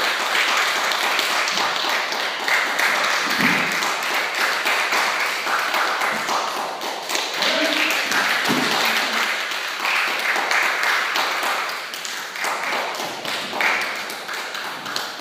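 Aikido throws and breakfalls on a dojo mat: repeated slaps and thuds of bodies and bare feet on the mat over the rustle of heavy cotton uniforms, with a few short voice sounds from the partners.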